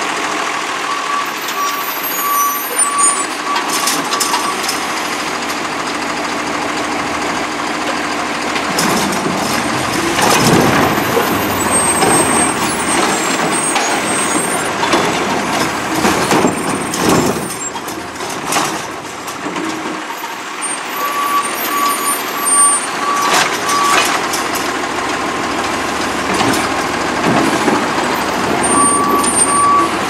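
Heil Python automated side-loader garbage truck running at the curb while its hydraulic arm lifts and dumps a cart, with loud surges of engine and hydraulic noise during the lift about 10 and 16 seconds in. A warning beeper sounds in quick repeated beeps at the start, again around two-thirds through and near the end.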